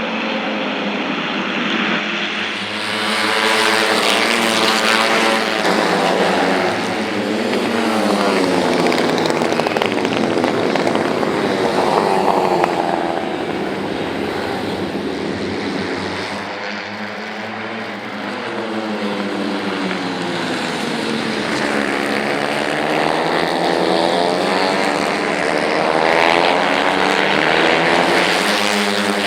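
J-GP3 racing motorcycles with 250cc single-cylinder four-stroke engines, revving hard and shifting as they pass. Their pitch rises and falls again and again as bikes come and go.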